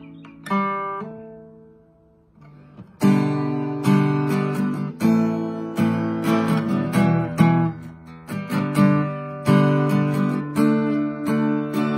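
Acoustic guitar played solo. A strummed chord rings and fades almost away about two seconds in, then steady strumming starts up about three seconds in and carries on.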